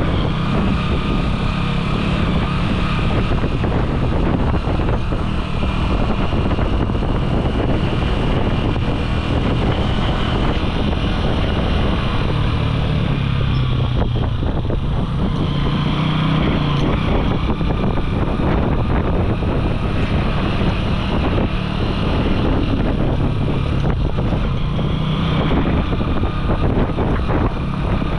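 Small motorcycle engine running at a steady riding speed on a rough dirt track, its note rising and falling a little with the throttle, mixed with wind noise on the microphone.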